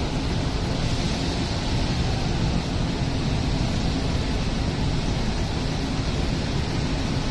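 Steady rushing noise with a heavy low rumble, with no distinct events: wind buffeting the phone's microphone over dockyard ambience.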